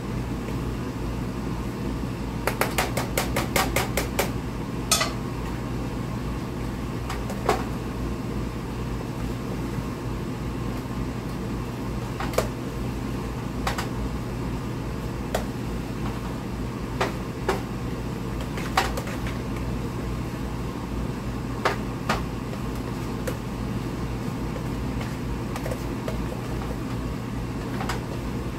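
Light clicks and taps of kitchen utensils against a plastic bowl and a pot as cooked cabbage leaves and diced ham are mixed, with a quick run of about ten clicks around three seconds in and single clicks scattered after. A steady low hum runs under them.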